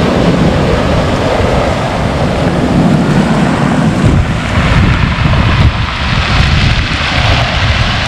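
Ocean surf breaking and washing up the black stone beach, a loud, rushing wash heard close from the water's edge with a heavy low rumble. About halfway through the rumble eases and a brighter hiss of foam washing around comes to the fore.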